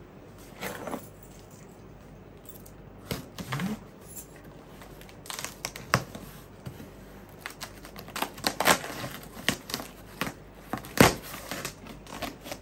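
Packing tape on a cardboard shipping box being slit and torn open by hand, with crinkling, scrapes and sharp clicks of cardboard handling, the loudest snap about eleven seconds in. Keys clink as they are moved.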